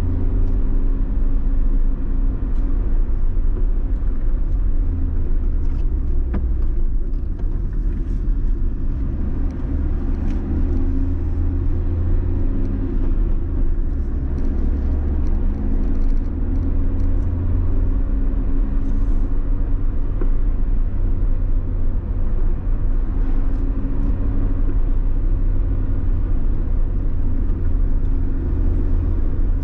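A car driving at steady speed: a loud, even low rumble of engine and road noise with a faint steady engine hum above it.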